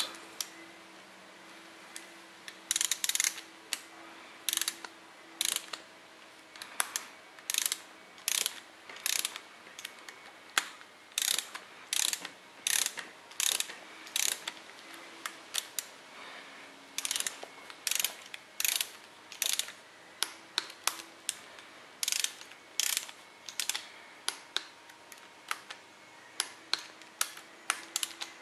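Ratchet head of a torque wrench clicking in short runs as it is swung back and forth, tightening the camshaft sprocket bolts to 35 foot-pounds.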